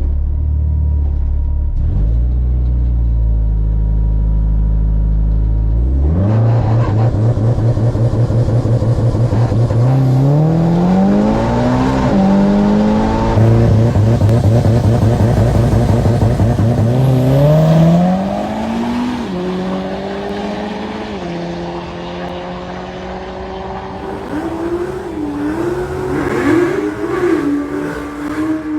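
Drag race car engine rumbling low, then launching hard about six seconds in. The revs climb, drop back at gear changes and climb again down the strip, then the engine eases off after about eighteen seconds.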